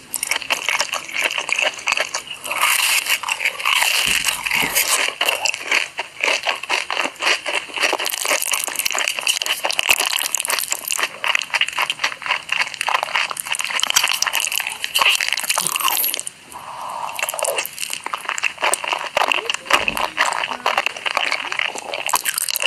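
Close-miked ASMR eating sounds: crunchy bites and chewing of corn dogs and noodles, dense and crackly throughout, with a brief lull about two-thirds of the way through.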